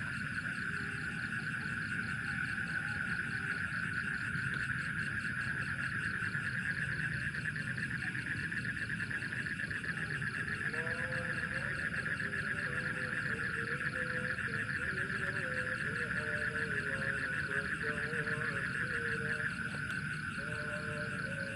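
Steady chorus of night insects, a continuous high, rapidly pulsing trill. From about halfway through, faint lower wavering calls join it.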